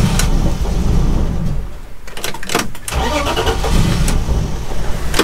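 Car engine cranked on the starter in two tries of about two seconds each, sputtering without keeping running. It is fuel-starved: the owner suspects a clogged fuel pump.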